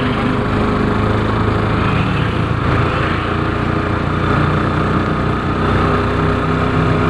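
Steady running of a vehicle's engine, with road noise and a faint steady whine, heard from inside the cab while it drives along.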